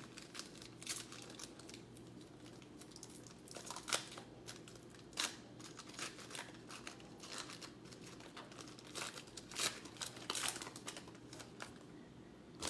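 Trading-card pack wrapper crinkling and tearing as a pack is opened and the cards handled: a run of irregular rustles and crackles, with a few sharper ones about 4, 5 and 9.5 seconds in.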